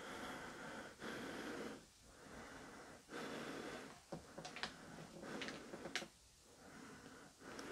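A person breathing heavily close to the microphone: about four drawn breaths in the first few seconds, then a few sharp clicks and rustles, and one more breath near the end.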